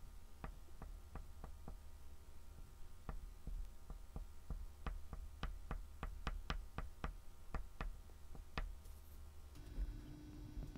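Soft oil pastel stick tapping and dabbing in short strokes on a black-painted MDF board: a run of light clicks, about three a second at their thickest, with a low rumble of hand and table handling underneath.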